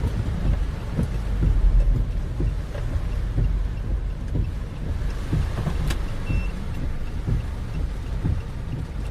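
Steady low rumble heard inside a car's cabin in a typhoon downpour, with scattered sharp taps. A short faint beep comes about six seconds in.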